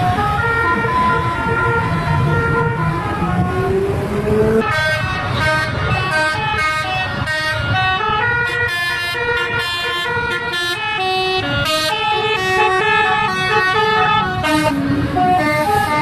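Bus telolet horn, a multi-trumpet air horn, playing a tune of quick stepped notes over and over, several tones sounding together, over bus engine and road noise. About four and a half seconds in the tune becomes brighter and busier.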